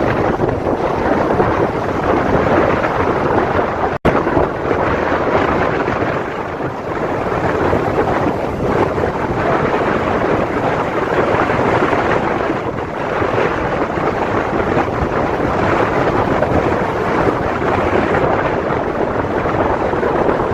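Sea waves washing ashore in a steady, loud rush that swells and eases, heavily mixed with wind buffeting the microphone. The sound drops out for a split second about four seconds in.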